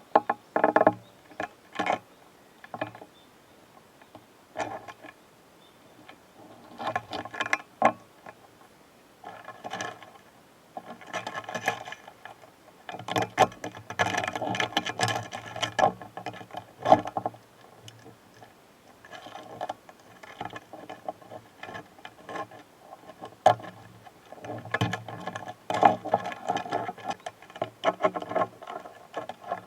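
Two stag beetles fighting at close range: irregular bouts of clicking and scratching as their hard bodies, legs and mandibles grip and scrape against each other. The busiest stretches come in the middle and near the end, with quieter pauses between.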